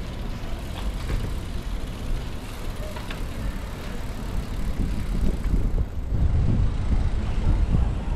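Wind buffeting the microphone and tyre rumble of a bicycle being ridden, with the rumble growing louder about five and a half seconds in.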